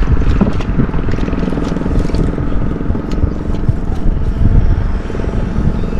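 Boat motor running steadily with a low rumble.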